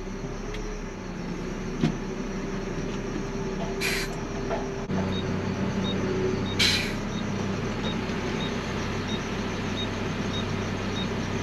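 Garbage truck's diesel engine running, heard from inside the cab, its note changing about five seconds in. Two short, sharp hisses of air come about four and six and a half seconds in, and a faint regular ticking runs through the second half.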